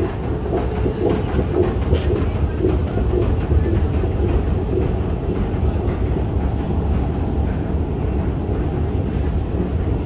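London Underground Jubilee line train running, a steady low rumble with a rhythmic clatter of two or three beats a second that fades out about halfway through.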